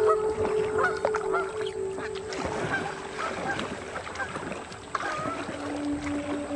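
A flock of Canada geese honking: many short calls in quick succession for the first two seconds, then only scattered honks. Under them runs background music with long held notes.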